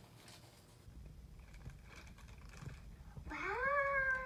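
Faint rustling of a toy's plastic wrapping being handled, then, about three seconds in, a young girl's long drawn-out vocal sound that slides up, holds and falls in pitch.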